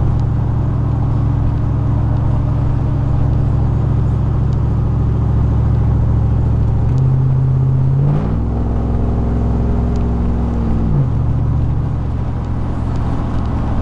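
2000 Chevrolet Silverado's 4.8-litre V8 engine and exhaust droning, heard inside the cab at cruising speed with road noise. About seven to eight seconds in the revs climb, hold higher for about three seconds, then drop back.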